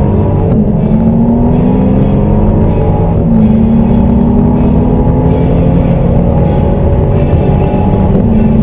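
High-powered car engine pulling hard at full throttle, its pitch climbing through the gears, with gear changes about half a second in, around three seconds in, and near the end.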